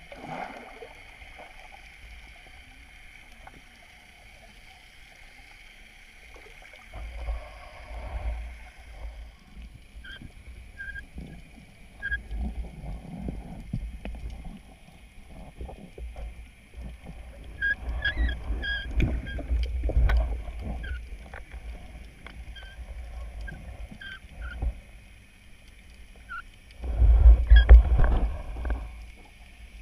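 Muffled underwater sound picked up through a GoPro's waterproof housing: a faint steady hiss broken by several low rumbling surges of water movement, the loudest near the end, with faint short pips scattered through.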